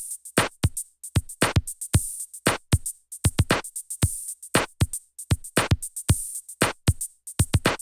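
Electronic intro music: a drum-machine beat on its own, short kick and snare hits with no melody or chords.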